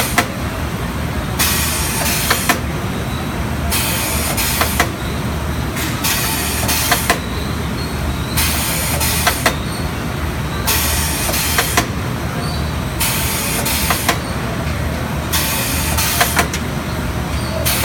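Steen ST 828 poultry machine running on chicken drumsticks: a steady motor hum, with a hissing burst about a second long repeating a little over every two seconds, and sharp clicks between.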